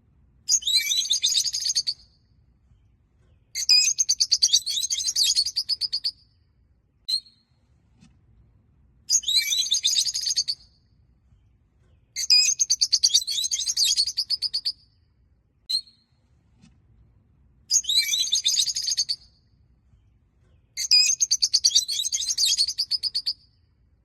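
Peach-faced lovebirds chattering in rapid bursts of a couple of seconds each, six times, with single sharp chirps in the gaps between them.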